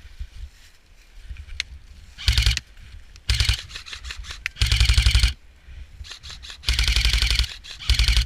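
Airsoft gun firing on full auto: five short bursts of rapid clicking shots, the third and fourth longer than the rest. The heavy full-auto fire is using up the shooter's ammunition.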